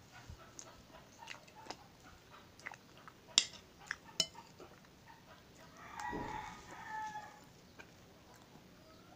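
Quiet eating sounds with two sharp clinks of a spoon on a ceramic plate about three and four seconds in. A rooster crows in the background for about a second and a half past the middle.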